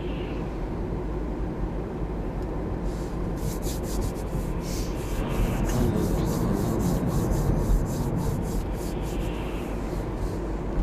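Car cabin noise while driving: a steady engine and tyre rumble, joined from about three seconds in by a rapid scratchy rasping, about four strokes a second, that stops near the end.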